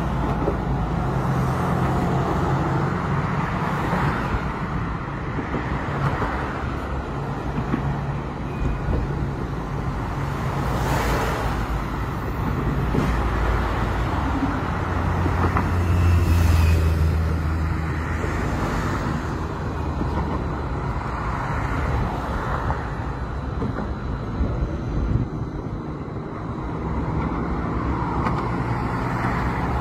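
City street traffic: a steady low hum of engines and tyres, with a louder low rumble about halfway through.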